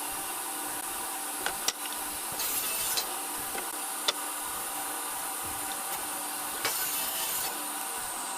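A power tool running steadily as wood is worked, with a few sharp clicks and two brief hissing stretches, about two and a half and about seven seconds in.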